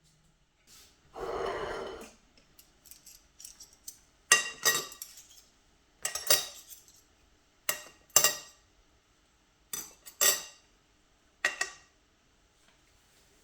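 Crockery and cutlery clinking: a series of sharp, ringing knocks, mostly in pairs, every second and a half or so, as china and utensils are set down and handled. A short scraping noise comes about a second in.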